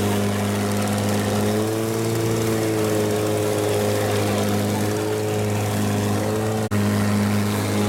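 Longtail boat engine running steadily under way, a loud, even, low drone over a hiss of wind and water. The sound drops out for an instant about two-thirds of the way through.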